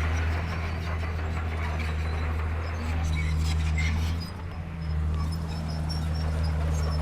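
Diesel engine of heavy construction machinery running steadily with a low hum, easing off briefly about four seconds in before picking up again.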